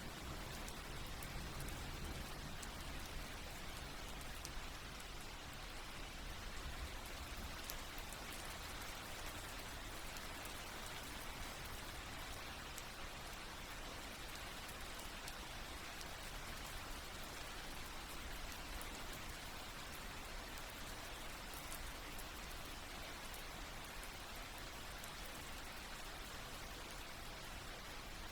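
Steady rain falling, a soft even hiss with faint scattered drop ticks.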